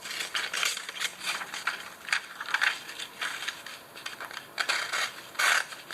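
A run of short, irregular rasping scrapes, several a second, from a Victorinox penknife blade being worked on its edge.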